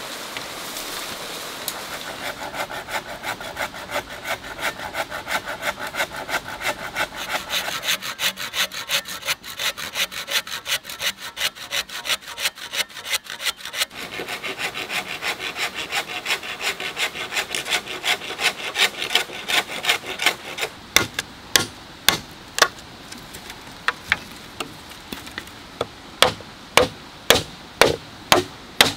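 A saw cuts through a green bamboo pole in steady back-and-forth strokes, about two or three a second, with a short pause midway. About twenty seconds in, the sawing gives way to sharp knocks on the bamboo, some in quick groups.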